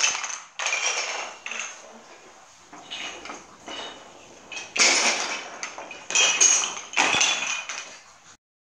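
Wooden yut sticks thrown for yutnori, clattering on a wooden floor several times, amid children's voices.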